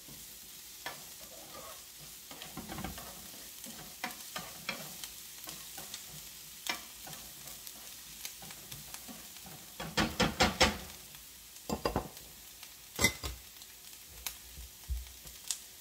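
Chopped onion and chile frying in oil in a pan, a steady sizzle while a utensil stirs and scrapes with light clicks. A quick run of about four louder knocks comes about ten seconds in, with a few single knocks after.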